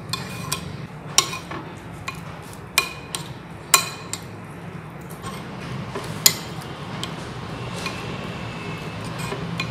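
Metal spoon stirring thick yogurt marinade in a glass bowl, scraping and clinking against the glass now and then, with a few sharper clinks standing out. A steady low hum runs underneath.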